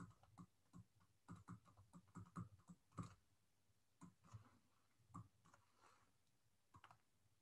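Faint, irregular light clicks and taps of a stylus writing on a tablet, over near silence.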